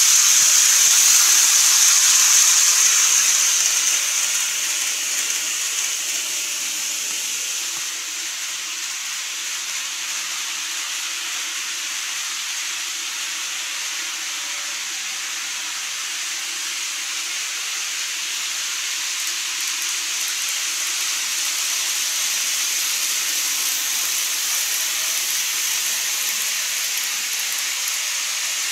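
N-gauge model train running on its track, a steady high rushing hiss from the wheels and motor. It is loudest as the train passes close at the start, fades, then swells again near the end as the train comes onto the truss bridge.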